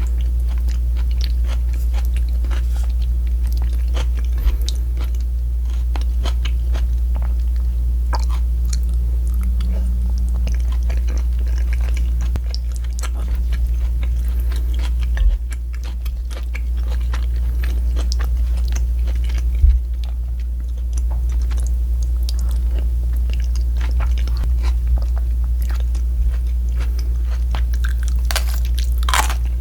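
A person chewing and biting into crunchy food close to the microphone, many small crackles, with a louder crunch near the end, over a steady low hum.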